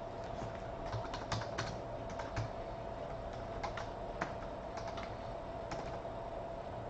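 Typing on a computer keyboard: irregular key clicks, some in quick runs, as a name is entered into a list, over a faint steady hum.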